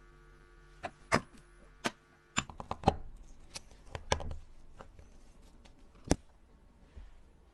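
Irregular sharp clicks and taps of small hand tools and watch parts being handled while a wristwatch is worked on, with a quick run of taps about two and a half seconds in and a single loud click about six seconds in.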